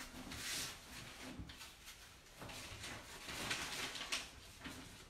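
Handling noise from paint supplies being picked up and moved about: a series of short rustles and light knocks.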